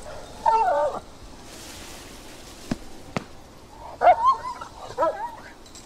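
German Shepherd in protection-dog training giving high-pitched, yelping barks: one about half a second in, then a few more around four to five seconds in. Two sharp clicks fall between them.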